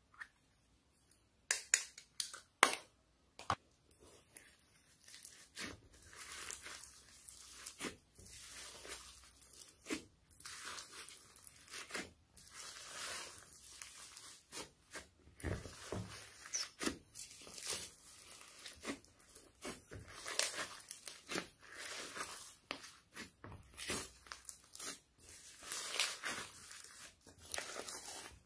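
Foam-bead slime being squished and kneaded by hand: crunchy crackling of the foam beads with wet squelches and small pops of air. A few loud sharp pops come about two seconds in, then the crackling and squishing run on.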